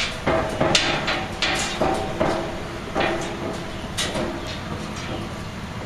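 Footsteps clanking on a steel fire-escape stair as someone climbs: irregular knocks about two a second, each with a short metallic ring.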